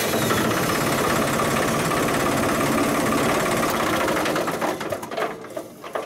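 John Deere 5045E tractor's three-cylinder diesel engine running at idle with a rapid, even chatter, just after starting with its thermostat sensor unplugged and a new starter relay fuse in. The sound fades near the end.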